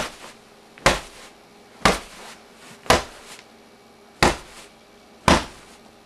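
A fist punching a sleeping bag six times, roughly a second apart, each hit a sharp thud, made as a punch sound effect.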